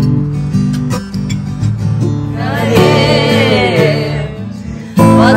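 Acoustic guitar strummed in a steady rhythm, with singing coming in about halfway and growing louder near the end.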